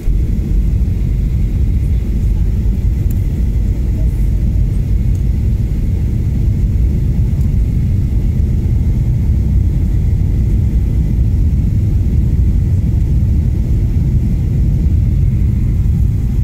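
Steady low rumble of a jet airliner's engines and airflow heard from inside the cabin during the landing approach, with a faint steady high whine above it.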